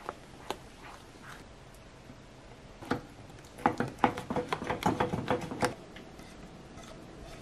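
A spatula scraping and knocking against a frying pan as thick custard cream is stirred. A few light taps come at the start, then a quick run of taps and scrapes about halfway through lasts about two seconds.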